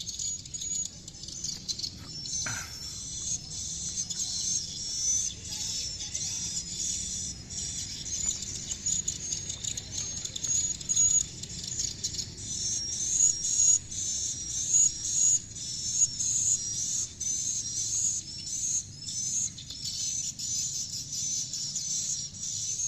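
Many swiftlets twittering together, a dense stream of short, high chirps overlapping throughout.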